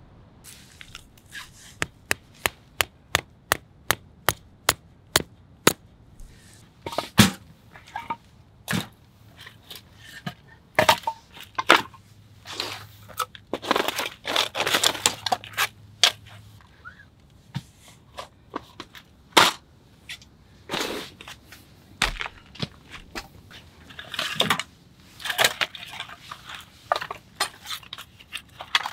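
Sharp knocks, a steady run of about three a second for the first several seconds, then irregular cracks and crunching.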